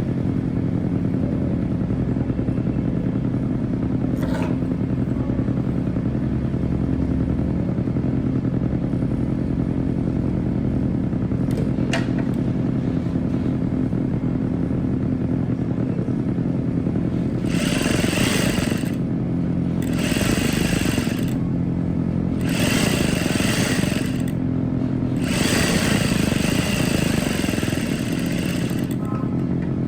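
Sewing machine: the motor hums steadily, then in the second half it stitches in four separate runs with a clattering sound, joining the skirt's side seams.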